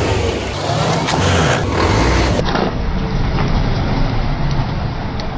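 Heavy truck running close by, its engine rumbling low under loud, steady tyre and road noise.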